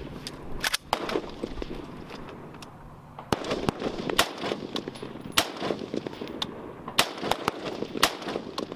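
M4 carbine rifle shots fired one at a time at uneven intervals, about a dozen in all. Some are loud and close, others fainter. The loudest cracks come around the middle and near the end.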